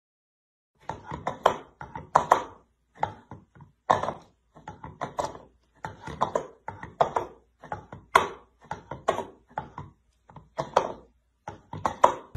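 A cat pawing repeatedly into a bowl: a quick series of short knocks and scrapes, about two or three a second, starting about a second in.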